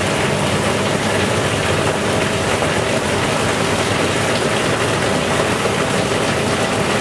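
Steady rushing and churning of an oil-and-water mixture pouring from a pipe into an open tote tank, with a low steady hum underneath.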